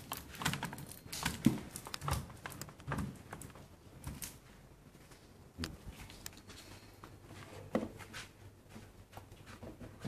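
Irregular clicks and knocks from a smart lock's metal body and lever handle being handled, closely spaced for the first four seconds or so, then only a few, one near the end.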